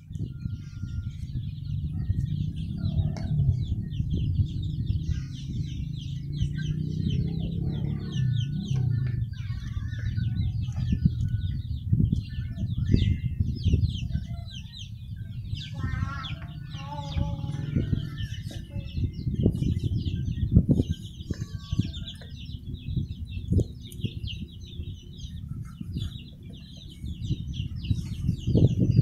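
Chickens clucking over a steady low rumble, with scattered knocks of knife work on wood; near the end, a cleaver chops on a wooden chopping block.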